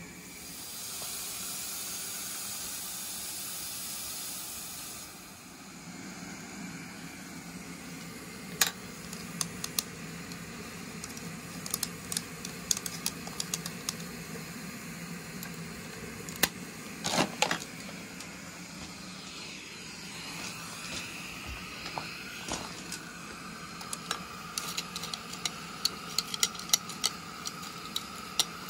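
Small 3.5-inch gauge live steam 4-6-0 locomotive hissing steam as it runs, with irregular sharp clicks from the moving train that grow more frequent near the end. A louder, higher hiss fills the first few seconds.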